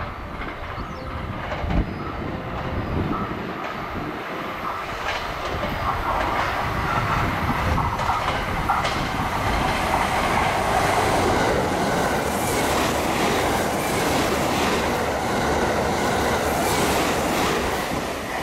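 Limited express electric train passing through a station at high speed without stopping. Its running noise and the rhythmic clatter of wheels over rail joints build as it approaches, stay loudest through the second half, and ease off just at the end.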